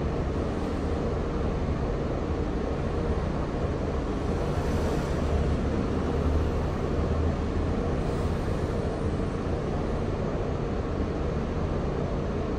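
Cabin sound inside a Mercedes-Benz Citaro O530G articulated bus standing still, its diesel engine idling as a steady low hum that swells slightly about five seconds in.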